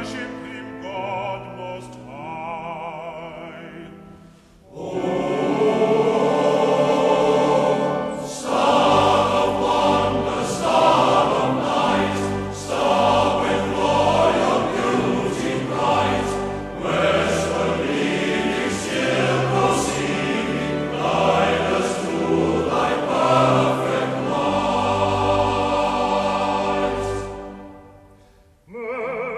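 Choral music: a choir singing over low instrumental accompaniment. A quieter passage fades out about four seconds in, then a loud full passage starts and fades out near the end.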